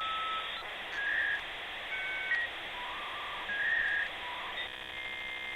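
Dial-up modem handshake: hiss with electronic tones that jump between pitches every half second or so, changing near the end to a harsh buzzing chord that cuts off suddenly.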